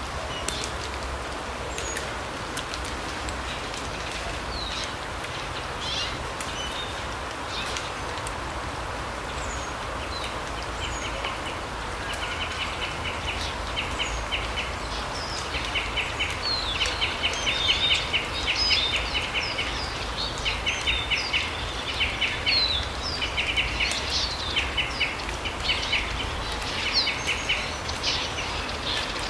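Forest birds calling: scattered short high chirps, and from about a third of the way in a rapid chattering call repeated in bursts of about a second each, over a steady background hiss.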